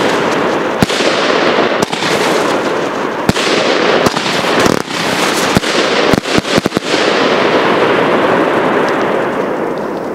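Alpha Fireworks 'Toxic Strobe' 36-shot cake firing: sharp shots, about one every second or so, over a continuous dense hiss and crackle of strobe stars. A quick volley of shots comes about six to seven seconds in as the cake finishes, and the crackle then dies away.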